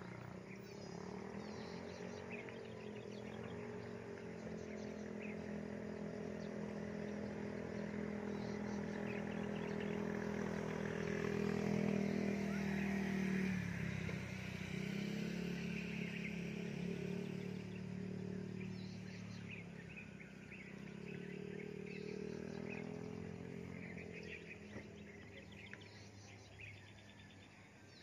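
Small birds chirping now and then over a louder low, steady humming drone. The drone swells to its loudest about halfway through, breaks off briefly and then carries on, fading toward the end.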